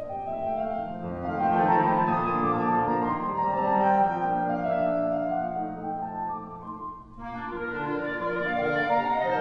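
Instrumental music with held, melodic notes, dropping away briefly about seven seconds in before carrying on.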